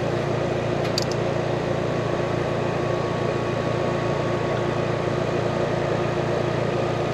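Outdoor air-conditioning condenser unit running with a steady hum and rush of air, with a couple of light clicks about a second in.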